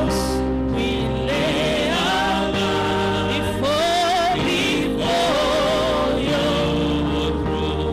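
Gospel worship music: voices singing a slow praise song over a sustained keyboard and bass accompaniment.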